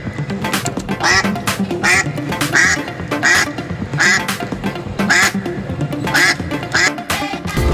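Duck quacks repeated about eight times, roughly one every 0.7 s, over a music track.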